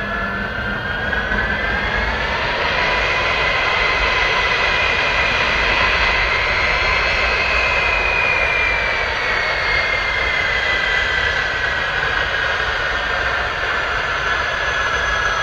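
Turbofan engines of a Boeing C-17 Globemaster III running, with a steady rush and a high whine that rises in pitch over the first few seconds, holds, then slowly falls.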